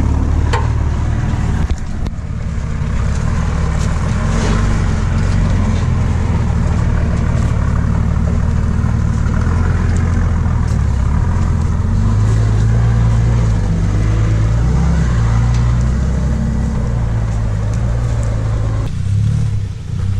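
Nissan Patrol ute's TD42 turbo-diesel engine running at low revs as it crawls over a rutted off-road track, the revs stepping up and down, rising a little about two-thirds of the way in.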